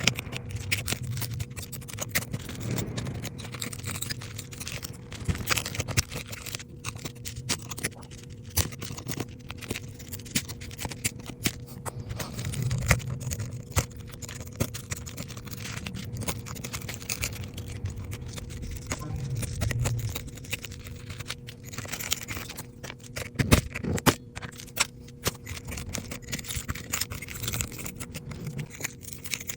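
Small hand tools scraping and clicking against an iPhone's parts in irregular taps and scratches, over a steady faint hum.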